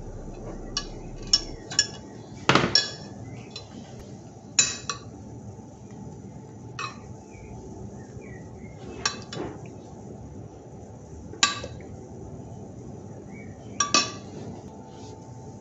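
A metal spoon clinking against a glass dish while tomato sauce is scooped out and spooned onto pizza dough. It makes a string of sharp, ringing clinks every one to two seconds, the loudest about two and a half seconds in.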